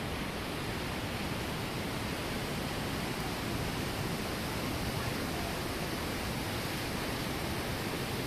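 Iguaçu Falls: a steady, even rush of heavy falling water that runs on without a break.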